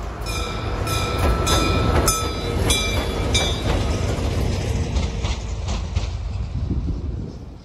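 A pair of Dv12 diesel-hydraulic locomotives passing close by, their engines giving a heavy rumble. The wheels click at a steady pace over the rail joints with a short ringing tone on each click. The sound is loudest as the locomotives go by and fades away near the end.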